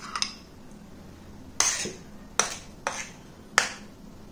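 Four sharp clinks of a steel ladle and utensils against the cooking pan and glass bowl as cooked dal is added to the rasam and stirred in, the first about a second and a half in.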